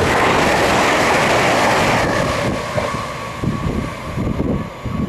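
Train passing through the station at speed: a loud rush of wheels and air that eases after about two seconds, leaving a rumble and a faint steady whine.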